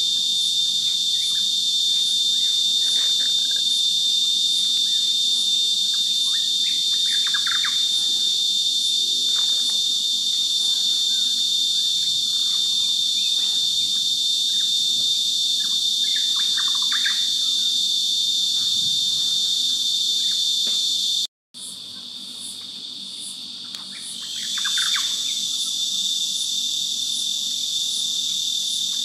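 Loud, steady chorus of insects: a shrill buzzing that holds one pitch throughout, with a few short chirps over it. It cuts out for a moment about three quarters of the way through, returns quieter, and swells back up a few seconds later.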